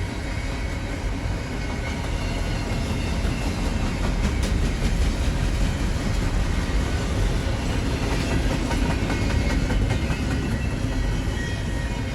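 Freight train of intermodal well cars rolling past: a steady rumble and rattle of wheels on rail with scattered clicks, a little louder in the middle.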